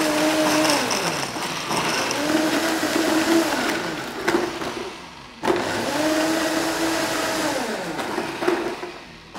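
Two Cecotec Power Black Titanium jug blenders (1800 and 2000) running their preset ice-crush and smoothie programs, blending coffee with ice cubes. The motor speeds up, holds, then slows down in repeating cycles of a few seconds, cutting out briefly about five seconds in and again near the end.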